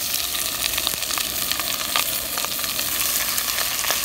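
Chunks of iguana meat frying in hot oil in a stainless steel pot: a steady sizzle with fine crackling that starts suddenly.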